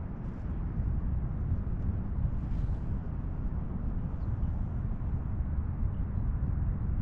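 Wind buffeting the microphone, a steady low rumble, with a faint swish about two and a half seconds in.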